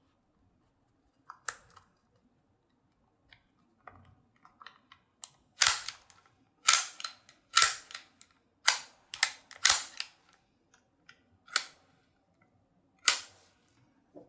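Toy Luger P08 gel blaster pistol being handled and fired: small mechanical clicks at first, then about ten sharp cracks at uneven intervals, with lighter clicks between them.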